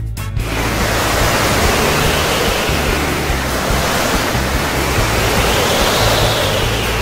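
Ocean water sound effect: a steady rush of water noise with slow swells, coming in as the background music cuts off just under half a second in.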